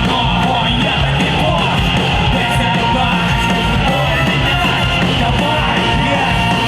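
Rock band playing loudly and steadily live, an instrumental stretch without sung words.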